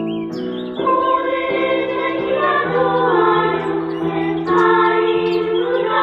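Children's choir singing a Korean children's song over instrumental accompaniment. A few high bird chirps sound behind the music near the start and again near the end.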